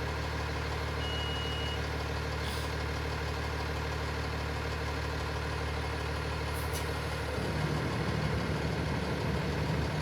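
Fire truck engine idling with a steady low hum; its note changes about seven seconds in. A short high beep sounds about a second in.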